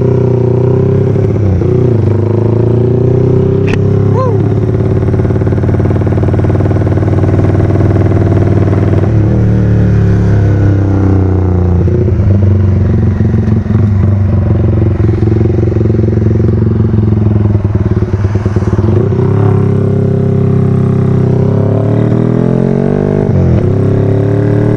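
Motorcycle engine running as the bike rides off, its pitch dipping and rising again several times with the throttle, including a sharp dip and climb near the end.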